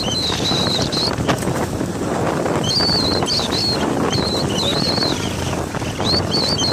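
Wind rushing over the microphone of a moving motorcycle, with the motorcycle running underneath. A wavering high-pitched whistle comes and goes several times.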